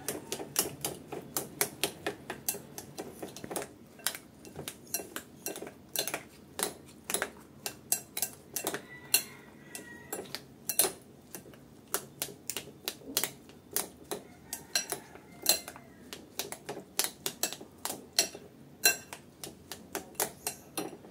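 A metal spoon clinks against a glass bowl in quick, uneven taps while stirring raw eggs with enoki mushrooms, carrot and scallion.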